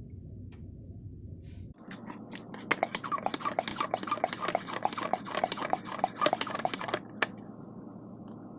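Hand pump sprayer being pumped to force automatic transmission fluid through a tube into the transmission's fill hole: a quick run of short squeaking strokes, about three or four a second, starting about two seconds in and stopping about seven seconds in.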